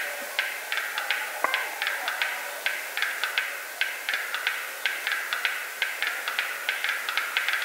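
Male black-billed capercaillie's display song: a run of dry, irregular clicks, about four a second, over a steady hiss.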